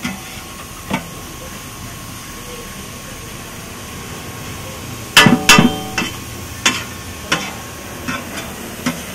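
Steel cookware at a street stall clanking: a quick cluster of loud ringing metal strikes about five seconds in, then single sharper taps every half second or so, over a steady hiss.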